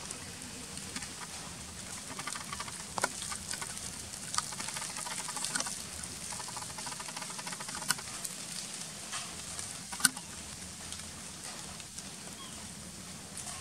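Steady outdoor background hiss with patches of faint crackling and a few sharp clicks, the loudest about ten seconds in.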